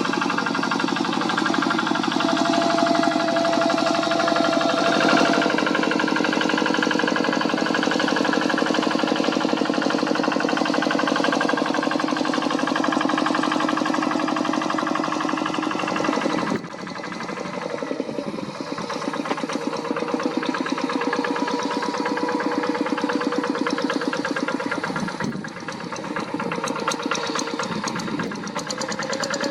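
Single-cylinder Kubota diesel engine of a two-wheel hand tractor running steadily under ploughing load, with a rapid even knocking beat. A little past halfway the sound drops suddenly and then runs on slightly quieter.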